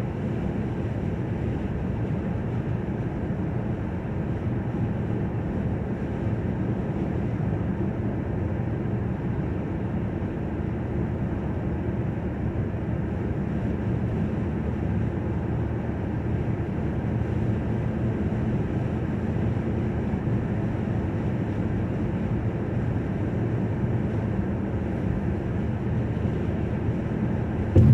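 Steady low rumble of a car's tyres and engine heard from inside the cabin while driving, with one brief knock right at the end.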